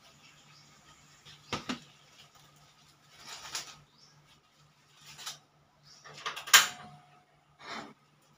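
Kitchen handling clatter: dishes and cooking utensils knocked and set down in several separate knocks and scrapes, the loudest about six and a half seconds in with a short metallic ring, over a faint steady low hum.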